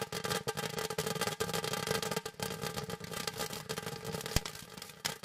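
Crackling fountain firework burning: a steady hiss of sparks thick with fast crackles, and one sharper crack about four and a half seconds in.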